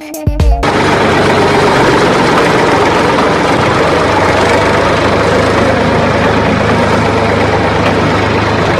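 A heavy engine running steadily, a dense even rumble over a low hum, starting abruptly about half a second in. It is an engine sound laid over the action, since the plastic toy tractors have no motor.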